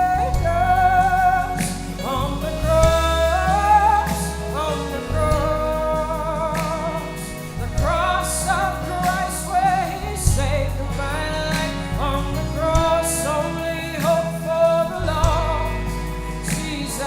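Live gospel worship band music: a voice sings a wavering, held melody without clear words over low bass notes that change every couple of seconds.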